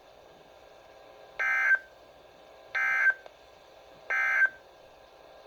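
Emergency Alert System end-of-message signal: three short, identical bursts of SAME digital data tones, each about a third of a second and roughly 1.4 seconds apart, marking the end of the flood warning broadcast.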